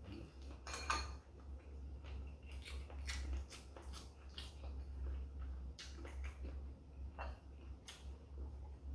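Eating at the table: chopsticks clicking on ceramic side-dish plates and bowls, with chewing of parboiled squid, as scattered short clicks and smacks over a low steady hum.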